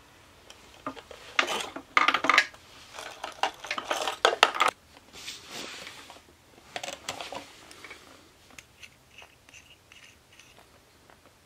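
Handling noise from a portable tyre compressor's air hose and metal valve connector being unwound and moved against the unit's plastic housing: a few seconds of rubbing, clattering and clinking, loudest in the first half, then scattered light clicks as small plastic parts are handled and fitted together.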